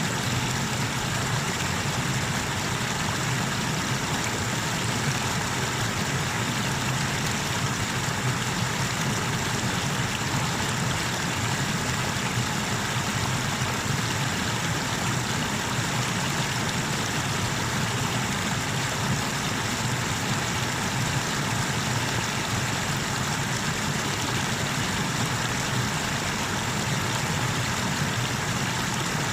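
River waterfall rushing steadily: an even, unbroken noise of falling and churning water.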